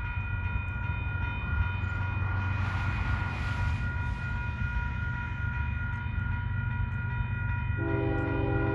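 Level-crossing bell ringing steadily over a low rumble as a Union Pacific freight train approaches; near the end the locomotive's horn begins to sound, a held multi-note chord.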